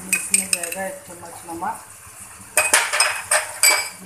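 Wooden spoon stirring chicken in an aluminium cooking pot, with sharp metallic clinks and knocks against the pot, in two clusters: a short one at the start and a louder one from about two and a half seconds in.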